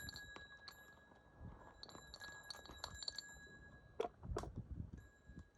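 Faint scattered clicks and light metallic clinks from hoof-trimming work, with two sharper knocks about four seconds in.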